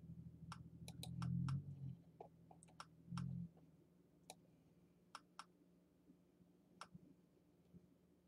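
Faint, irregular clicking of a computer mouse, about a dozen clicks scattered over the first seven seconds. A low hum sounds in the first two seconds and again briefly a little after three seconds.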